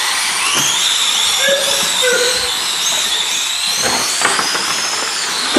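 Several radio-controlled touring cars racing: high-pitched electric motor whines that rise and fall in pitch as the cars accelerate and brake, over a steady hiss.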